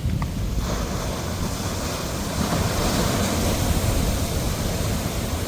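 Sea waves breaking and washing up in a steady rush, with a low rumble underneath; a louder hiss of surf sets in about half a second in and carries on.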